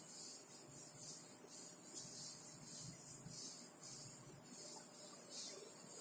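Chalkboard duster wiping a chalkboard clean: repeated swishing strokes, about two a second.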